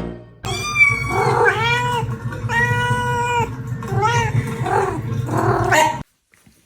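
A cat yowling: a series of long, drawn-out meows over about five and a half seconds, stopping suddenly near the end.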